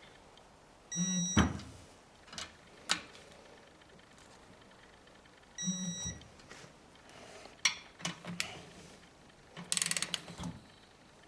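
Electronic torque wrench beeping twice as cylinder head bolts reach the set torque of 25 newton metres, about a second in and again near six seconds. Sharp clicks of the wrench and socket between the beeps, with a quick run of ratchet clicks near ten seconds.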